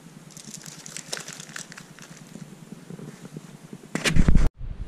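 New tapered roller bearings handled in plastic packaging: light rustling and small metallic clicks, then a loud low thump about four seconds in that cuts off suddenly.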